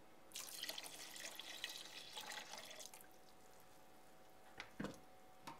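Beef broth poured from a measuring cup into a pot of cooked-down onions, splashing for about three seconds. A few short knocks follow near the end.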